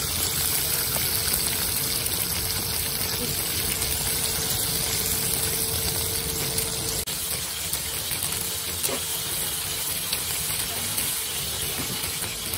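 Chicken thighs frying in oil on a flat-top griddle, sizzling steadily. A steady hum runs underneath and drops out about halfway through.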